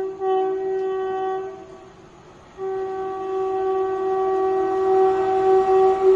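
Horn of an approaching train's locomotive: one blast stops about a second and a half in. A second, long, steady blast starts about two and a half seconds in and grows louder as the train nears.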